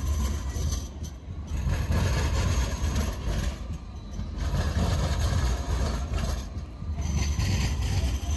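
Alstom Citadis 305 light-rail tram running on street track: a continuous low rumble that swells and eases over the few seconds.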